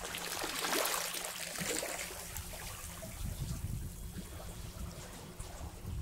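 Small waves washing and trickling over rocks in shallow water at the shoreline: a hissing wash about a second in, then lower, duller surges of water.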